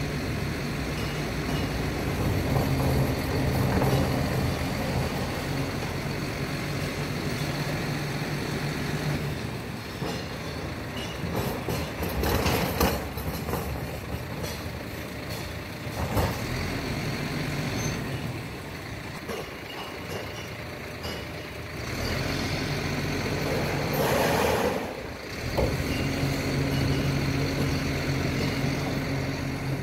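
Collection truck's engine running steadily, with two short, louder bursts of noise, about twelve seconds in and again about twenty-four seconds in.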